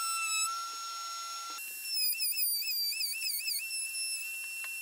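Background music: a single whistle-like melody line with a wavering vibrato, holding long notes and jumping up about an octave a little over a second in.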